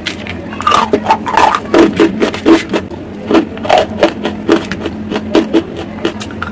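Close-miked crunching and chewing of hard, dry earthy lumps, with irregular crunches several times a second, densest in the first half.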